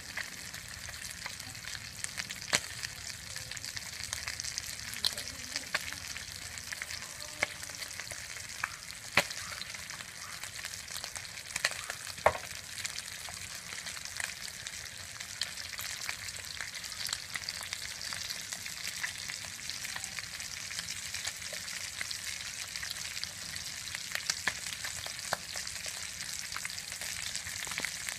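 Whole fish frying in hot oil in a pan: a steady sizzle with scattered sharp pops of spattering oil, a few of them louder.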